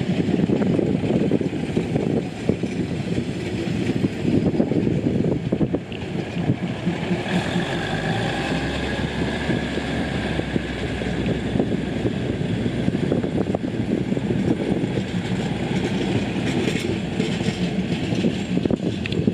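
Train in motion on the track: a steady rumble with dense rattling of wheels and carriages. A low hum and a faint high whine come in about a third of the way through and fade after a few seconds.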